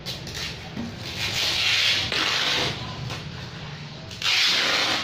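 Cloth rustling and sliding as fabric is handled, in three rushing bursts, the longest about a second, over a low steady hum.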